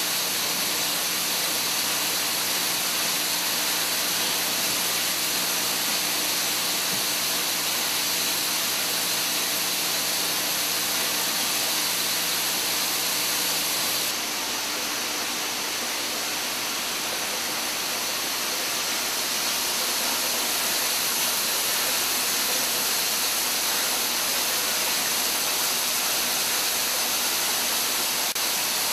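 Syringe assembly machinery running: a steady, even hiss of machine noise with a faint hum under it. About halfway through the hum drops out and the hiss turns brighter.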